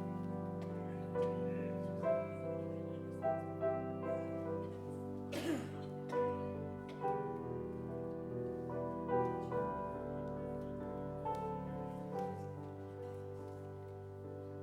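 Slow instrumental keyboard music: sustained chords and a melody moving note by note over long-held bass notes.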